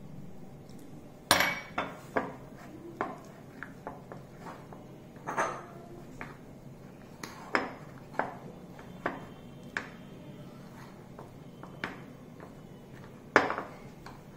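Metal spoon clinking and scraping against a glass mixing bowl at irregular intervals, stirring water into flour to form dough.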